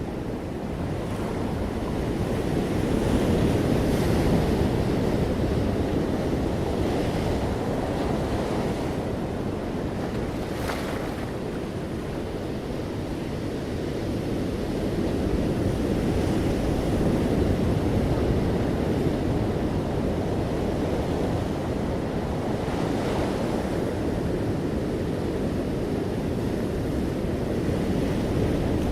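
Ocean waves breaking on a shore, a continuous wash of surf that swells and ebbs slowly, with a few brief brighter splashes.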